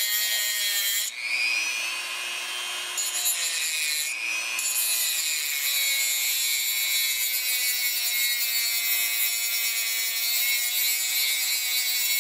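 High-speed rotary tool (Dremel) with an abrasive cutoff wheel grinding into a steel bearing inner race, a steady high-pitched whine with a gritty scrape. The motor's pitch sags briefly about a second in and again around four seconds as the wheel bites harder. The cut is being made to weaken the pressed-on race so a cold chisel can split it off the steering stem.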